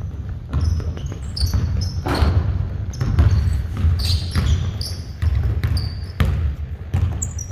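Basketballs bouncing on a gym court in irregular thuds, with short high sneaker squeaks scattered between them.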